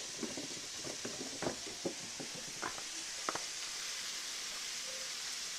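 Sliced bell peppers and onions sizzling in oil in a cast iron skillet, a steady hiss with a few light ticks in the first few seconds.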